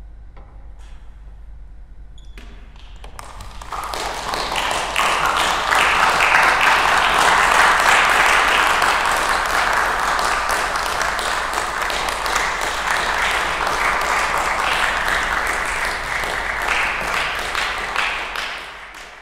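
The last held notes die away, then an audience applauds from about three seconds in, a dense steady clapping that fades out near the end.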